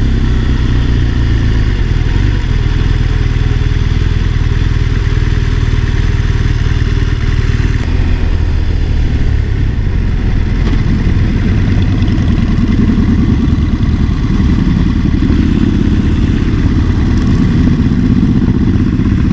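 BMW R1200RS boxer-twin engine running steadily under way, its note shifting about eight seconds in.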